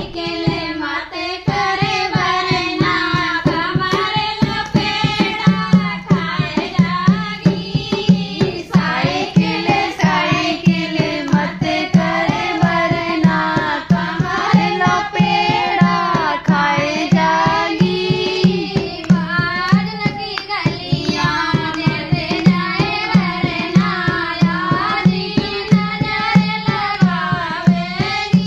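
Women singing a dehati banna-banni wedding folk song in Hindi to a dholak. The dholak keeps a fast, steady beat under the voices, coming in about a second and a half in.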